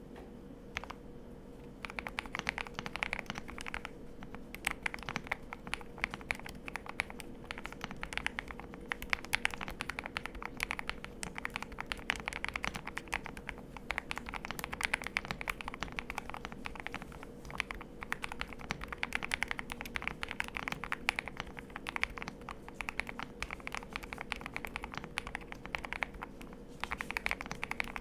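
Continuous fast typing on a KBDFans Tiger Lite mechanical keyboard with Krytox-lubed KTT Roses linear switches, a PC plate and MDA-profile keycaps, dampened by foam and a tape mod. Keystrokes clatter in a dense stream, starting about two seconds in after a single click, with a brief pause near the end.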